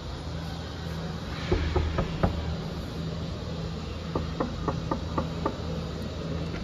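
Light knocking on a wooden hotel room door, a quick even run of about six knocks, after a few scattered taps earlier, over a steady low hum.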